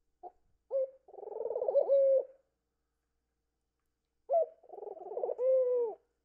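Pet ringneck dove cooing twice. Each coo opens with short notes, rolls through a fast pulsing stretch and ends on a held low note.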